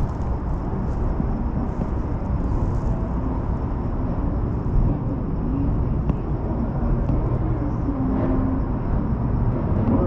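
Las Vegas Monorail train running, heard inside the car as a steady low rumble with a faint high whine above it.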